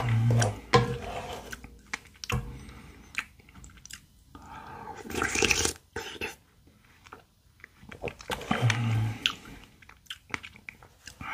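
Close-miked eating of strawberry shaved-ice bingsu. A wooden spoon clicks and scrapes in the bowl, with wet chewing and crunching of ice and strawberry, and a longer slurp from the spoon about five seconds in. Two short low hums come near the start and later.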